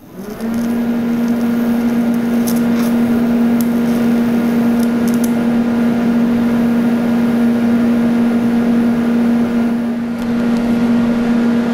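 TIG welding arc struck and held on thin pressed steel: a steady electrical hum with a hiss and a few faint ticks, dipping briefly near the end. The torch is turned right down to 20 amps, which the welder finds not quite enough for these welds.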